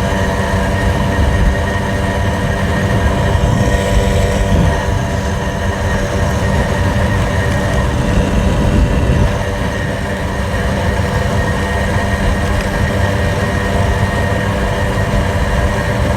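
Small two-stroke moped engine running steadily at riding speed, with wind rumbling on the microphone.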